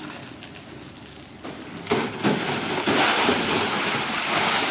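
Hot oil in a deep fryer sizzling and crackling, starting suddenly about two seconds in after a quieter start.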